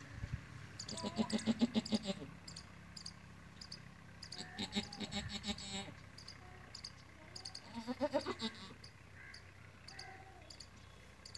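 Animal calls in several bouts of rapid pulsing, with short high chirps recurring throughout.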